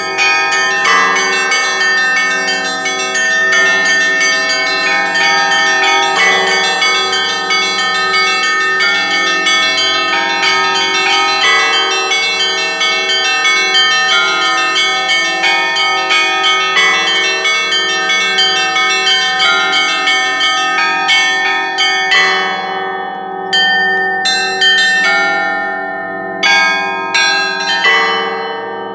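Russian church bell ringing (kolokolny zvon). Small bells are struck in quick patterns over the steady hum of the middle bells, and a big bell sounds about every five to six seconds. Near the end the small bells stop briefly several times between phrases.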